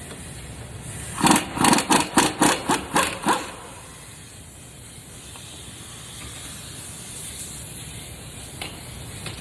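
Wrench working a 19mm front brake caliper bolt loose: a quick run of about eight loud rattling pulses, about four a second, lasting a couple of seconds.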